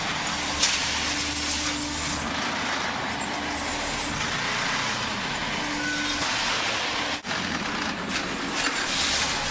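Steady machinery noise of a concrete block-making production line, with a few sharp metallic clicks. The sound drops out for a moment about seven seconds in.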